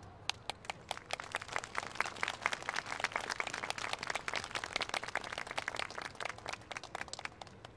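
Audience applause: many uneven, scattered hand claps that thin out and stop near the end.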